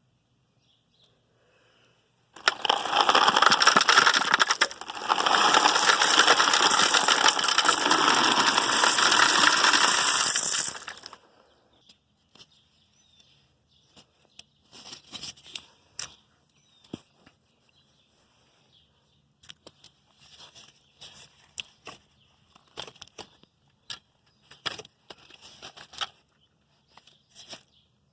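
Gravel poured into a French drain trench: a dense, rattling rush of stones that starts about two seconds in and cuts off after about eight seconds. After it come scattered scrapes and clicks of gravel being spread.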